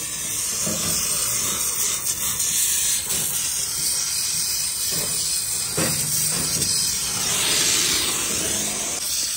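Gas welding torch flame hissing steadily as it heats the bent rim of an alloy wheel for repair; the hiss swells louder for a moment near the end.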